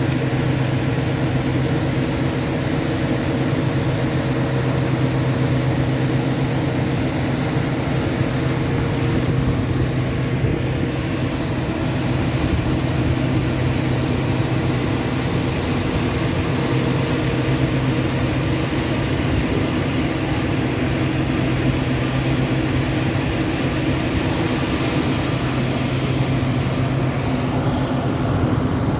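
Diesel engine of heavy farm machinery running steadily at constant speed, a loud, even hum with no change in pitch.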